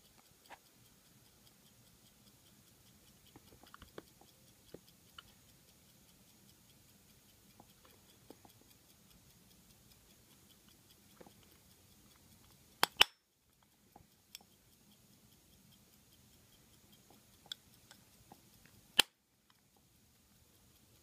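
Gold-filled chronograph pocket watch handled up close: faint, irregular small clicks and taps, with a sharp double mechanical click about two-thirds of the way through and another single sharp click near the end.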